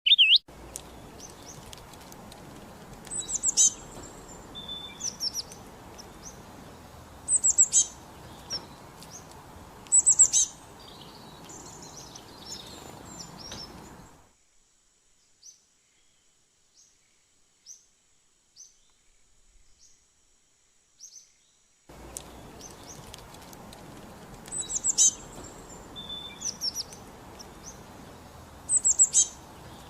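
Birds chirping: short, high, sharp chirps every few seconds over a steady background hiss. The hiss cuts out abruptly for several seconds in the middle, leaving only faint, thin chirps, then returns with the same chirping.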